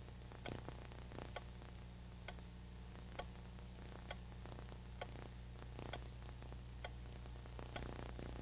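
A clock ticking evenly about once a second, over a steady low hum and hiss.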